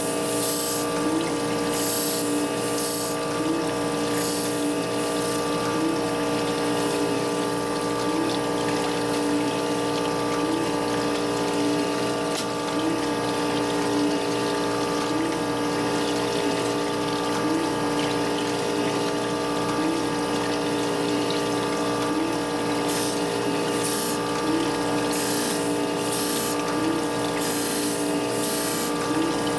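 Surface grinder running with its motor and coolant pump humming steadily and flood coolant splashing over the work. The wheel is grinding a hardened tool-steel cam follower, and a hiss comes in short repeated passes in the first few seconds and again over the last six seconds.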